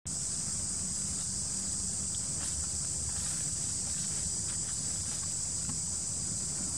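Steady, high-pitched insect chorus buzzing without a break, over a low rumble, with a few faint soft crackles in the middle.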